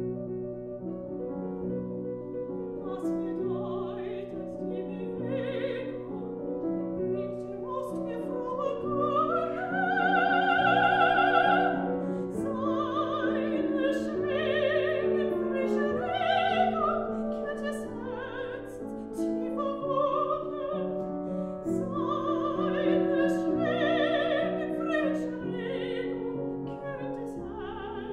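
A classical soprano sings a German art song with vibrato, accompanied by a grand piano. The voice enters a few seconds in and rises to a loud, high held note about ten seconds in.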